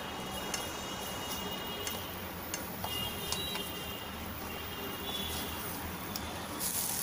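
Chopped onions cooking in a pan as they soften: a steady sizzle with scattered small ticks and pops, growing louder near the end.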